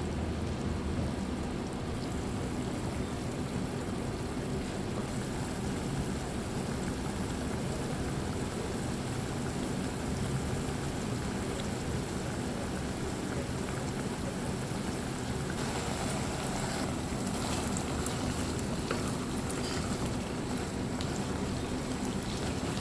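A pan of chicken liver adobo simmering on the stove: a steady bubbling hiss over a low hum as the sauce reduces and thickens. Fine crackling picks up about two-thirds of the way through.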